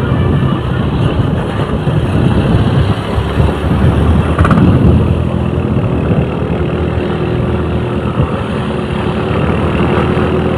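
A large road vehicle's engine running close by as it passes, with heavy road noise, typical of a bus or truck.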